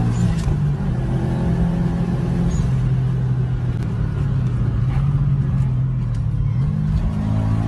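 Turbocharged car engine running at fairly steady revs, a low drone that shifts only slightly in pitch.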